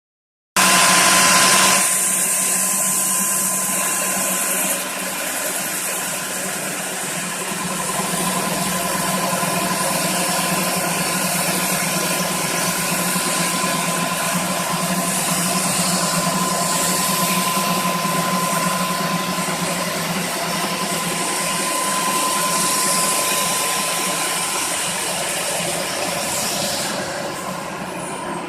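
Concrete floor grinding machine running steadily, a constant motor hum with a thin whine and a hiss of abrasion over it. It starts suddenly just after the beginning and is loudest for the first second or so.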